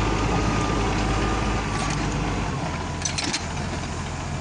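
Claas Arion 630 tractor's six-cylinder diesel engine running steadily, with a brief rattle of metal about three seconds in.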